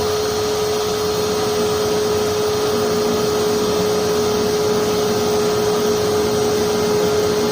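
Electric blower of a forced-air propane forge burner running with one steady whining tone over the even rush of the burner, with the gas at 3 psi and the flame running too rich.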